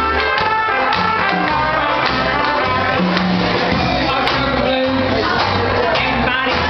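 A small jazz band playing, with clarinet, trumpets and banjo. About halfway through, a woman's voice starts singing over the band.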